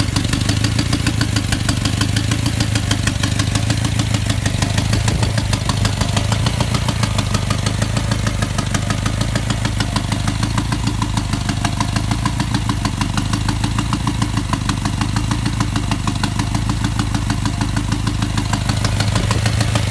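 BMW M5 F10's twin-turbo V8 idling steadily with a rapid, even knocking tick running through it, which the owner takes for rod failure or a leaking turbo.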